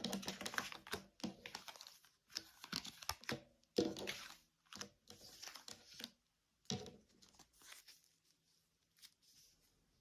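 Tarot cards being handled and laid out: a run of short papery rustles and slaps, busier in the first half and thinning to a few scattered ones.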